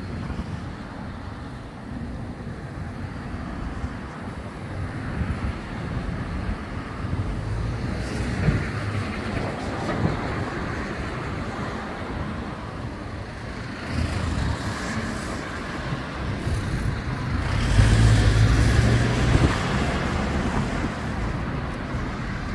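Road traffic going by: a steady wash of passing cars, with one car going by about nine seconds in and a louder vehicle passing near the end.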